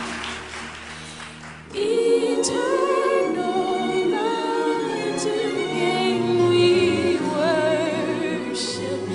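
Music: a choir singing. The earlier passage fades down, then the voices come in suddenly about two seconds in and carry on at full level.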